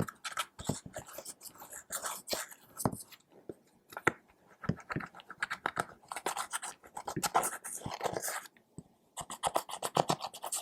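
Clear slime being squished and kneaded by hand, giving dense runs of sticky clicks and pops, with two short pauses.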